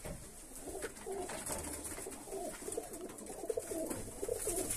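Many domestic pigeons cooing at once inside a loft, their calls overlapping continuously.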